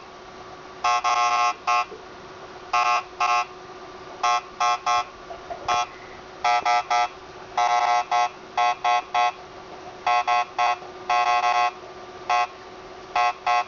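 Geiger counter beeping once for each detected count: short pitched beeps at random, irregular intervals, some bunched close together, about three a second. It is counting a rain sample at a little over 200 counts per minute, well above its alert level.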